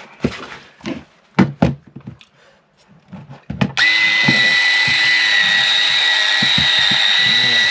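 A few sharp knocks of handling, then the small brushed motor and gearbox of a cordless electric rotary shear start near the middle and run steadily with a high-pitched whine.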